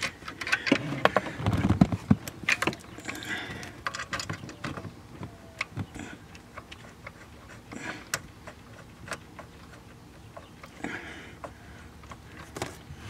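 Scattered light clicks and taps of a metal oil-pressure line fitting being handled and threaded on by hand, with a few duller bumps near the start and the rustle of wiring being brushed aside.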